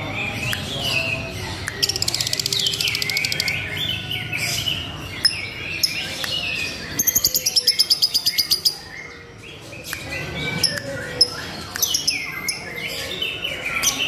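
A caged red-faced lovebird chattering with a steady stream of high chirps, broken twice by fast stuttering runs of rapid pulses, about two seconds in and again about seven seconds in.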